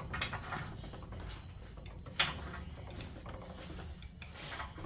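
Clicking and rattling of a metal geared mechanism, with one sharp metallic click about two seconds in.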